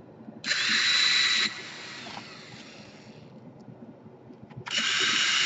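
Two bursts of hissing, each loud for about a second, then tailing off more quietly; the second starts near the end.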